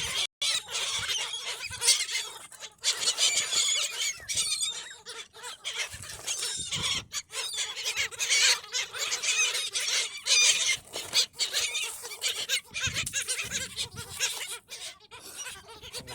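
A flock of seagulls squealing and calling over one another, a dense continuous chorus of high, wavering cries broken only by brief gaps.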